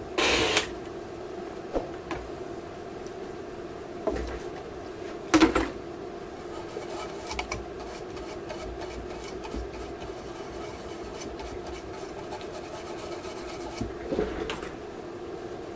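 Inverter circuit board being handled and shifted on a workbench: a few short scrapes and light knocks, the loudest about half a second and five seconds in, over a steady low hum.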